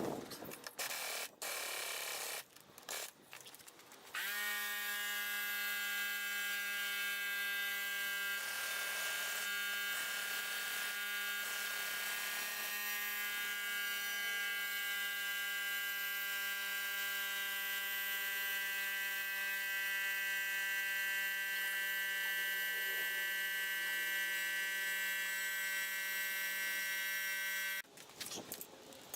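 A small electric motor runs at a steady pitch with an even buzzing hum, starting about four seconds in and cutting off near the end, after a few short clicks.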